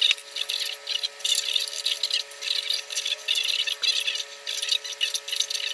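Bristles of a small paintbrush scratching against a stone in quick, short, irregular strokes: a dry, scratchy hiss that starts and stops several times a second.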